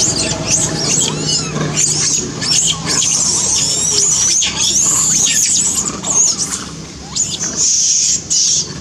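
Infant long-tailed macaques squealing and screeching: a rapid string of short, high-pitched calls that slide up and down in pitch.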